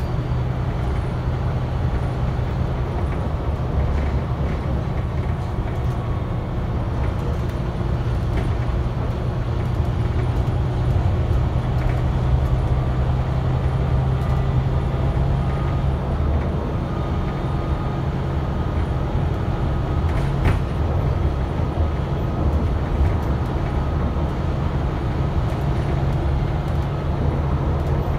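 Inside a moving Volvo B9TL double-decker bus: the rear-mounted six-cylinder diesel drones steadily under road and tyre noise, with light interior rattles and one sharp knock about twenty seconds in.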